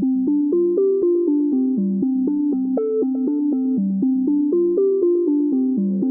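Background music: a keyboard or synthesizer playing a fast, repeating pattern of short notes.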